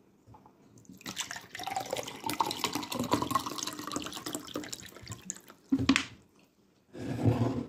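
Wet squelching with many small clicks as fingers pinch off and work a lump of fufu, followed by two short, louder sounds near the end.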